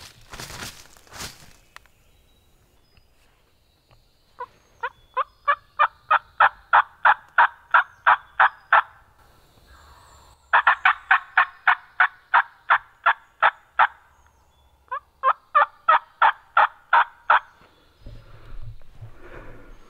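Turkey yelping: three long runs of evenly spaced, sharp yelps at about four a second, the first growing louder as it goes.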